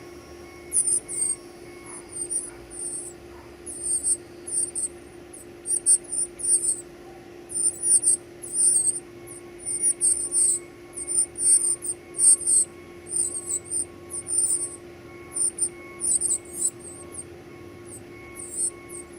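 Baby birds giving high-pitched begging chirps, many short calls in quick clusters throughout, over a steady low hum.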